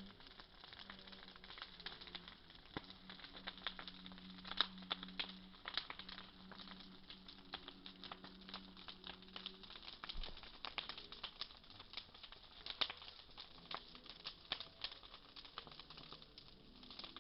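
Bonfire crackling, with a steady run of sharp irregular pops and snaps.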